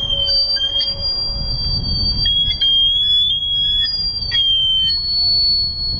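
Several high, steady electronic tones sound together in an improvised experimental piece, each shifting slightly in pitch now and then. Sharp clicks come about a second in, midway and after about four seconds, over a low rumble.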